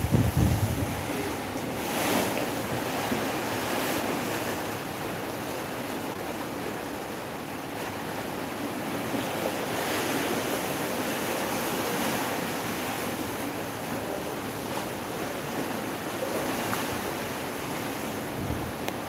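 Sea water rushing and churning along the side of a moving ship's hull, a steady wash of noise, with wind buffeting the microphone in gusts in the first second and again near the end.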